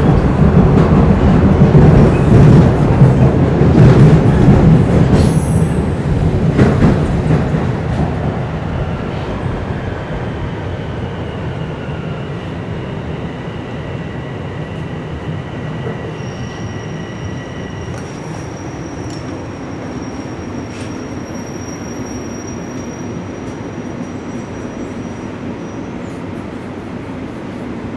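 TTC Line 1 subway train on the move. Loud wheel and track rumble dies away over the first ten seconds as the train slows. A quieter steady running sound follows, with thin high-pitched squeals and whines from the wheels and brakes.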